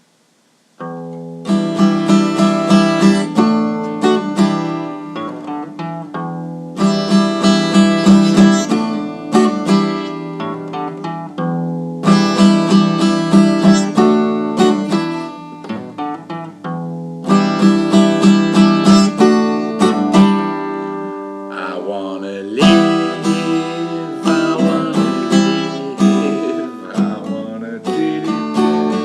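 Acoustic guitar strumming chords in repeating phrases, starting about a second in. About three quarters of the way through, a wavering sound with sliding pitch joins the guitar.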